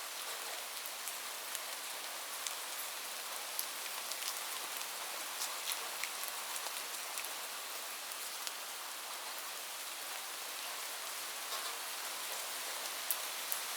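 Steady rain falling, an even hiss with scattered sharp ticks of single drops hitting a surface.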